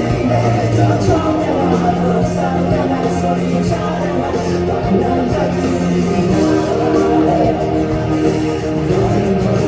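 A live rock band playing a song, with guitars over a steady full-band backing and singing.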